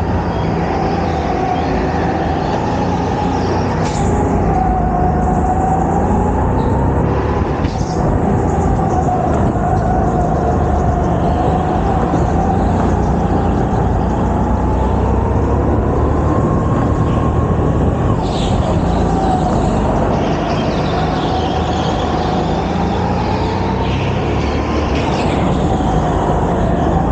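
Go-kart running at speed, heard from onboard: a steady motor whine whose pitch rises and falls through the corners over a rough low rumble, with a few short high-pitched squeaks now and then.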